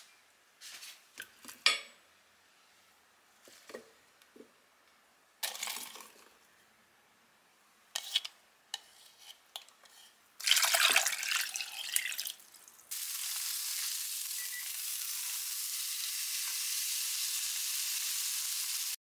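A few short bursts of handling noise, rustling and clatter, followed from about two-thirds of the way in by a steady, even hiss.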